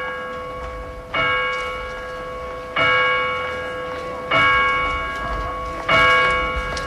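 A bell tolling at a slow, even pace, one stroke about every one and a half seconds, four strokes, each ringing on until the next.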